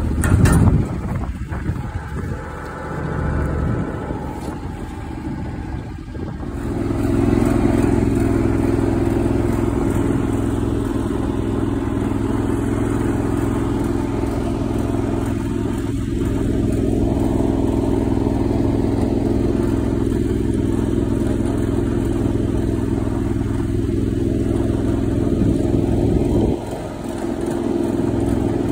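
Small vehicle engine running at a steady speed from about six seconds in, with a brief drop near the end. Before that, a sharp knock just after the start and uneven mechanical noise.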